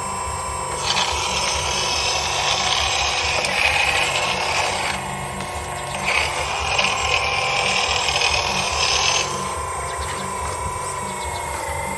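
Electric hydraulic pump of an RC hydraulic excavator running with a steady whine. Twice it swells into a louder, harsher high rush, for about four seconds and then about three seconds, as the hydraulics work the arm under load.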